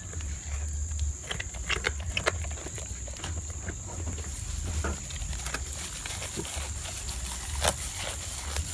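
Goats munching and tearing fresh awar-awar (Ficus septica) leaves close to the microphone: irregular crunching, leaf rustling and sharp chewing clicks.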